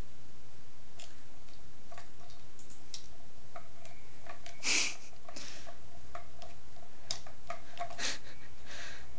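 Scattered light clicks and taps of a plastic cat activity toy as a cat paws its spinning blue foam-covered tubes around the post, with a louder knock about halfway through and another near the end.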